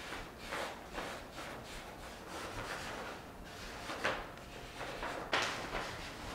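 Thin printing paper rustling and crinkling as hands rub and press it down over an inked fish to transfer a gyotaku print, in a string of uneven strokes, with a louder crinkle about four seconds in and another just past five seconds.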